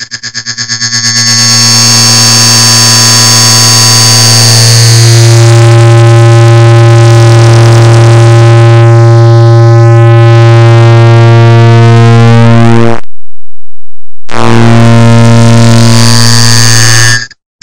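A clock-ticking sound sped up and layered until the ticks merge into a very loud, distorted buzzing drone. It starts as rapid pulses that swell into the drone, cuts out completely for about a second and a half around 13 seconds in, then comes back.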